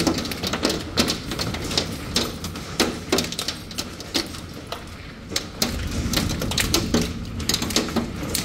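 Hailstones striking hard surfaces in a rapid, irregular patter of clicks and knocks over a low rush of downburst wind. The hits thin out briefly near the middle, then pick up again.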